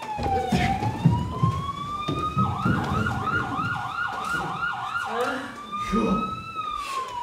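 Police siren sound effect: a slow wail that falls and rises in pitch, switching about two and a half seconds in to a fast yelp of about four warbles a second, then back to the slow wail near the end. Low thuds sound underneath in the first couple of seconds.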